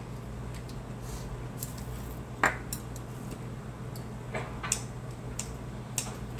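Eating utensils clicking against dishes at a meal table: a few scattered sharp clinks, the loudest about two and a half seconds in, over a steady low hum.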